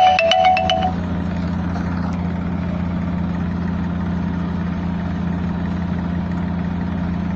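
Tractor diesel engine running steadily at an even speed, a constant low hum. A short chiming jingle dies away in the first second.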